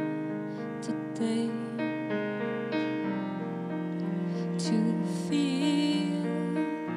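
A slow, tender song on a keyboard instrument, piano-like, playing sustained chords, with a woman singing a held, wavering note about five seconds in.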